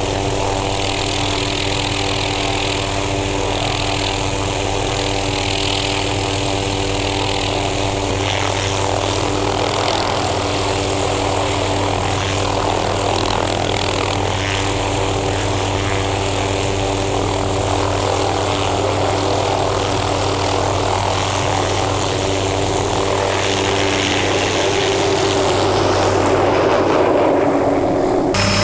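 Helicopter hovering low overhead while lifting a sling load, its turbine and rotor blades giving a loud, steady drone.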